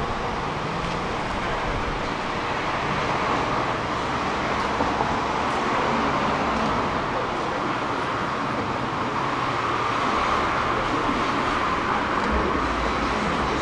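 Steady road traffic noise, an even hum of passing vehicles.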